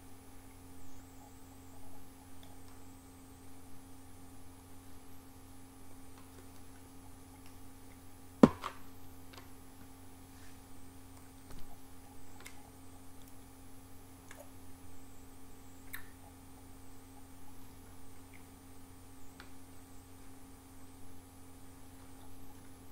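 Steady low electrical hum, with a few faint clicks scattered through it and one sharp, loud click about eight and a half seconds in.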